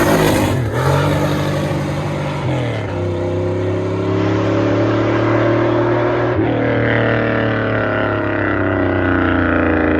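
LS-swapped V8 engine under way. Its revs rise and fall in the first few seconds, drop sharply a little before 3 s, then hold fairly steady with a brief break a little past 6 s, like gear changes followed by cruising.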